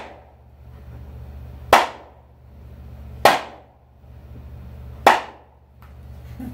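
Hammer striking a handheld wooden board three times, sharp single blows about a second and a half apart, each fading quickly, as he tries to break the wood.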